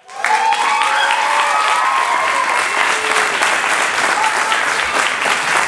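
Audience applauding, dense and steady, with a few voices cheering over it in the first few seconds.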